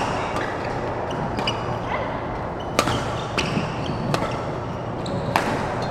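Badminton rally: rackets strike the shuttlecock with sharp cracks, the loudest about three seconds in and again near the end, with fainter hits between. Short shoe squeaks on the court floor come between the shots.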